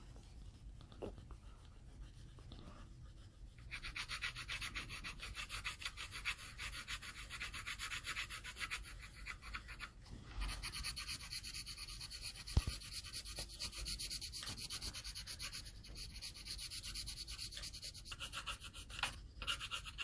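Quick back-and-forth colouring strokes on paper, scribbling in an area. They start a few seconds in, pause briefly about halfway, and then go on, with a single small knock in the middle.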